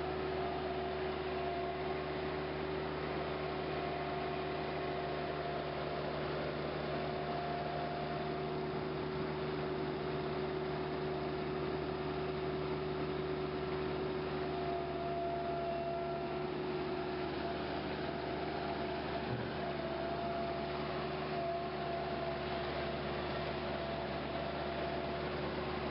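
Engine running at a steady speed: a constant, even hum with no revving.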